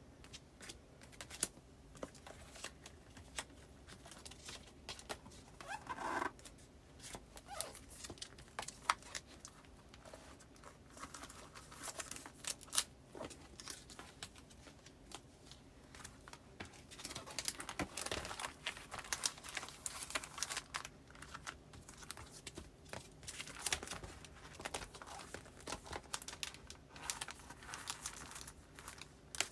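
Postcards and other paper goods being handled and slid into the plastic sleeves of a file folder: irregular rustling, crinkling and small clicks and taps, busier in the second half.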